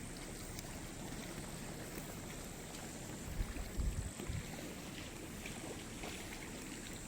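Steady background hiss, with a brief low rumble a little past the middle.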